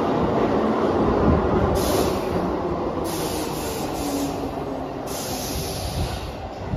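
Keihan electric train moving past an underground station platform. A steady rumble of wheels and running gear eases slowly, broken by three bursts of hiss, and ends in a short low thump right at the end.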